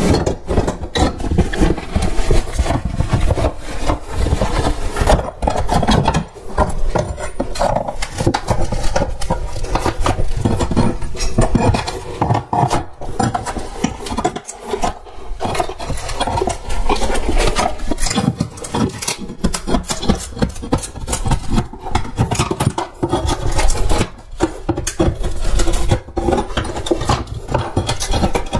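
Tools scraping, rubbing and knocking on the wooden stairs, irregular and loud with many sharp knocks, as carpet and nails are stripped off the steps.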